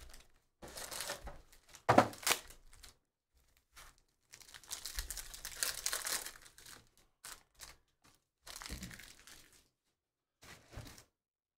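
Foil wrapper of a Panini Prizm trading-card pack crinkling and tearing as it is ripped open, in several bursts with one sharp, loud crackle about two seconds in.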